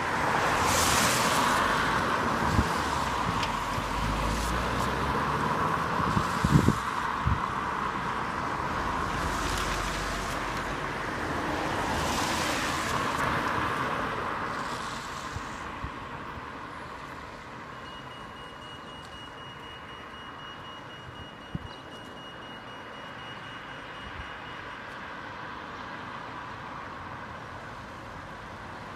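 Road traffic passing a pelican crossing, with several cars going by in the first half. About two-thirds of the way through, once traffic has stopped, the crossing's pedestrian signal gives a rapid high beeping for about seven seconds, the sign that the green man is showing, and then it stops.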